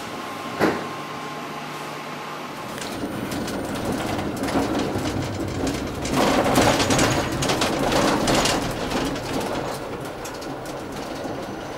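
Tram running on its rails: a low hum at first, then the sound grows to its loudest around the middle with rapid clatter from the wheels and track, and eases off again. A single sharp knock comes just after the start.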